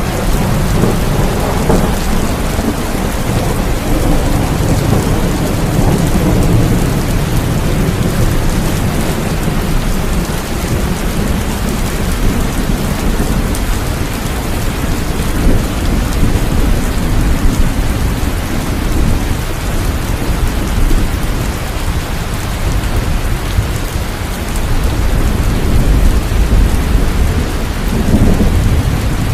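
Steady rainfall with low, rolling thunder rumbles. The rumbling swells in the first several seconds and again near the end.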